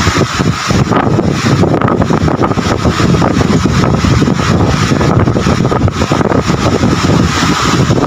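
Heavy rain pouring in strong wind, with gusts buffeting the microphone in a loud, steady rush.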